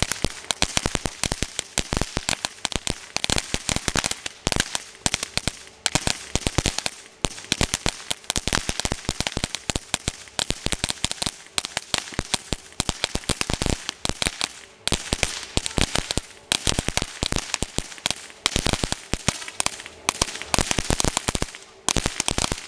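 A long string of firecrackers going off in rapid, irregular pops, with a few brief lulls.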